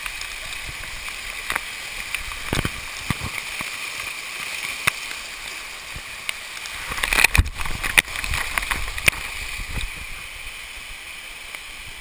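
Steady rush of a waterfall heard close up through a waterproof camera housing, with sharp knocks and splashes of water against the housing, heaviest about seven to eight seconds in.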